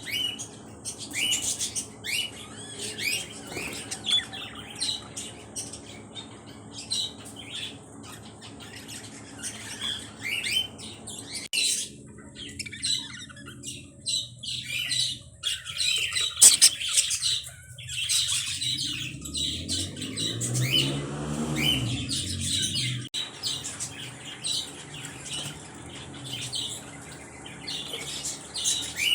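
A flock of small birds chirping and squawking in a constant overlapping chatter of short, high calls. About twenty seconds in, a lower fluttering sound rises briefly under the calls.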